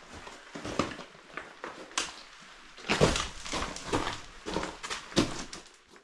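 A man panting hard in short, noisy breaths while scrambling up rock on hands and feet, mixed with scrapes and knocks of his gear; the breaths come about twice a second in the second half.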